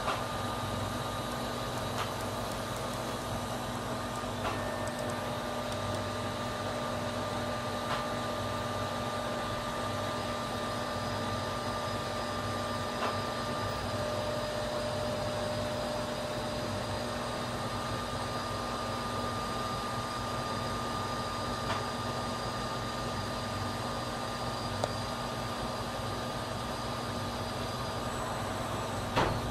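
A 5-axis CNC machine milling a car crankshaft: a steady running noise with several steady whining tones from the spindle and cutter. A few faint ticks are scattered through it, and there is a sharp click near the end.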